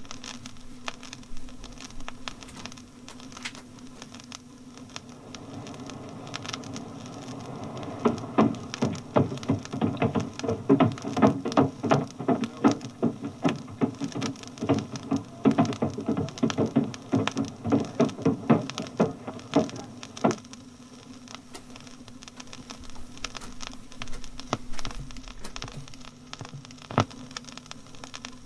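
Passengers' footsteps boarding a bus, a dense run of knocks and shuffles for about twelve seconds over a steady low engine hum, followed by a single sharp click near the end.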